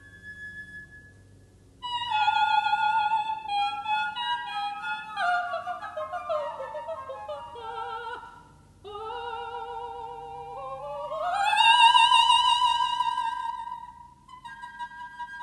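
Operatic soprano singing a florid, lightly accompanied passage of the mad-scene cadenza: a descending run, then a climb with wide vibrato to a loud, held high note. A held flute note answers near the start and again near the end.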